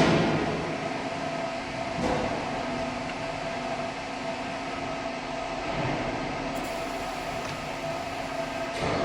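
Industrial machinery running steadily: a continuous hiss with a faint low hum underneath, even throughout.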